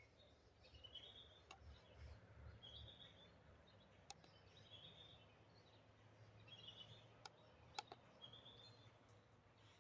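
Faint bird song: a short chirped phrase repeated every second or two, with a few faint, sharp clicks in between.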